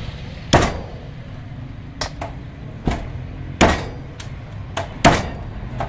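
Heavy cleaver chopping raw chicken on a wooden chopping block: a run of sharp, irregular chops about a second apart, four of them hard and several lighter knocks in between.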